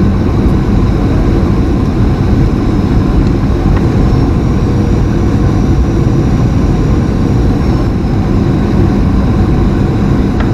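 Steady cabin noise inside a Boeing 737-800 on short final: its CFM56-7B turbofan engines and the airflow make an even, loud rumble, heard from a window seat beside the wing.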